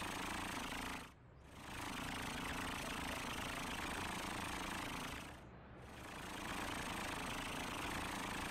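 Cartoon truck engine sound effect running steadily as the truck drives along, fading briefly twice: about a second in and again around five and a half seconds.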